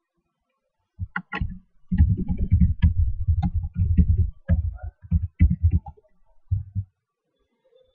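Typing on a computer keyboard: a quick run of key clicks, densest in the middle, then two more clicks near the end.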